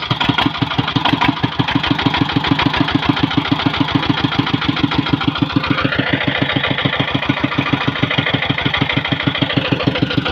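Small single-cylinder diesel engine running at a steady idle, a regular rapid beat of firing strokes, several a second.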